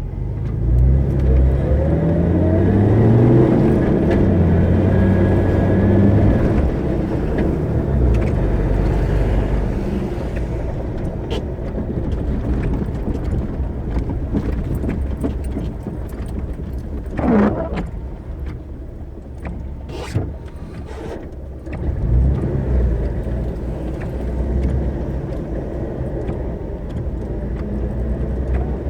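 Car being driven, its engine rising in pitch as it accelerates over the first few seconds, then running steadily with tyre and road noise. A short sharp knock comes about two-thirds of the way through, followed by a few clicks.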